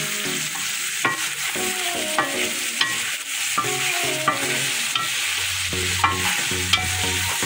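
Spoon stirring pork and green peppers frying in an aluminium pot: the meat sizzles steadily while the spoon scrapes and knocks against the pot about once a second.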